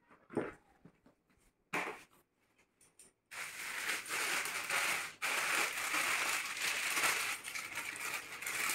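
A few brief knocks and rustles, then from about three seconds in, continuous loud crinkling of a plastic carrier bag and a clear plastic packet being handled and opened, with a short break near the middle.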